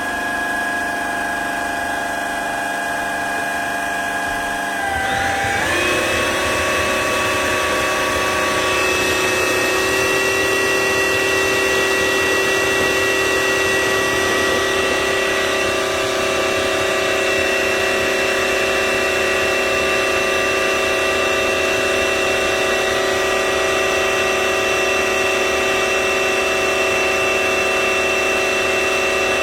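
Cordless wet-dry vacuum-mop running its self-cleaning cycle in the docking station: a steady motor whine that shifts pitch and gets a little louder about five seconds in, then runs evenly.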